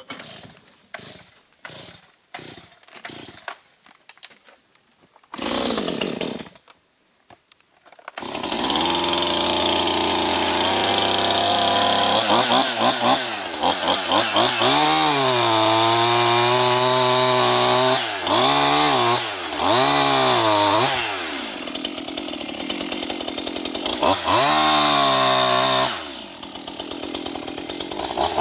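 A few faint knocks, then a short louder burst about five seconds in. From about eight seconds a gas two-stroke chainsaw runs loud and steady, revving up and dropping back again and again as it saws through a fallen tree trunk.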